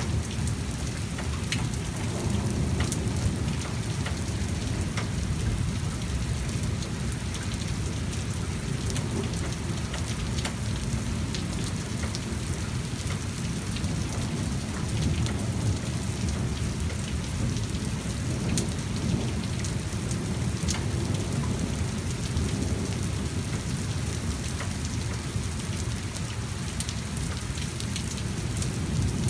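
Heavy rain pouring onto pavement, steady throughout, with many sharp drop ticks over a continuous low rumble.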